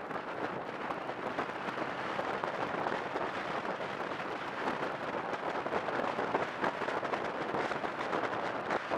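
Steady rushing road and wind noise from a vehicle travelling along the road at speed, with a constant fine crackle.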